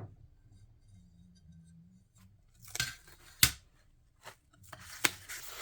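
Stained glass sheets and their packaging being handled: a few short, sharp clicks and rustles, the sharpest about three and a half seconds in, after a quiet start.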